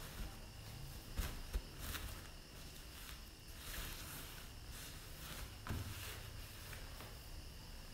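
Soft rustling of cloth and a few light knocks as hands adjust a handkerchief face mask and headscarf, over a steady background hiss.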